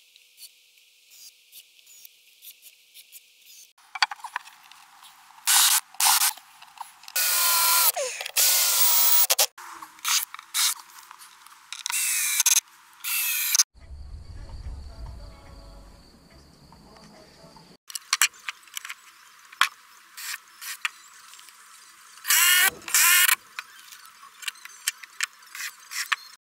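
Power drill driving decking screws into the platform boards, heard as bursts of whirring among dense clicks and knocks from the woodwork. The sound jumps every few seconds between short clips and is thin, with the low end missing in most of them.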